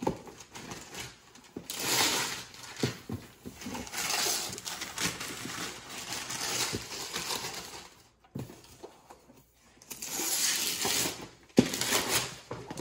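Wrapping paper being ripped off a large cardboard gift box in several bursts of tearing and crinkling, with a pause about eight seconds in.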